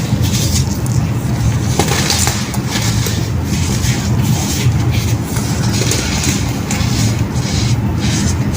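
Pressed baking soda crushed into crumbs, giving irregular crisp crunches over a steady low rumble.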